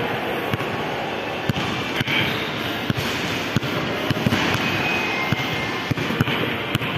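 Basketball being dribbled on a hard floor in a ball-handling drill of drops, between-the-legs and behind-the-back dribbles: sharp bounces at an uneven pace, about one to two a second, over a steady background hum of a large hall.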